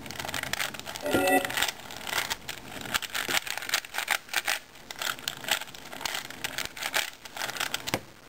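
A 4x4 Rubik's cube being turned quickly, its plastic layers making dense, irregular clicking and rattling, sped up.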